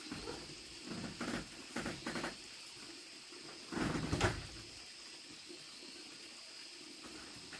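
Rustling and scuffing of a person crouching at a woven bamboo door and slipping out through it: a few short scuffs in the first two seconds, then a louder, longer scrape about four seconds in. A steady high-pitched hum runs underneath.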